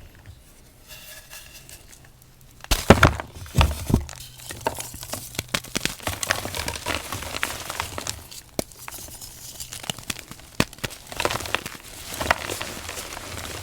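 Green reformed gym chalk being crushed: a loud crunch about three seconds in, then steady crackling and crumbling as the chalk breaks apart, crunchy and soft at once.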